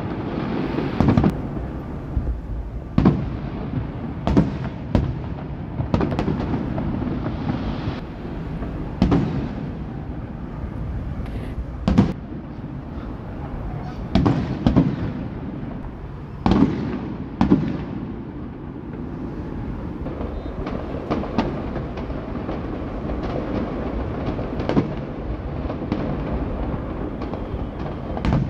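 Aerial fireworks bursting: a dozen or so sharp bangs at irregular intervals, over a steady background rumble of further bursts.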